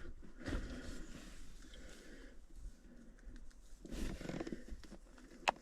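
Faint rustling and handling noises, then a sharp camera shutter click near the end as a photo is taken, likely on a phone.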